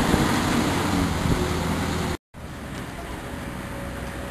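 Miniature railway locomotive's engine running close by, a steady low hum, cut off suddenly about two seconds in; after that, quieter open-air background noise.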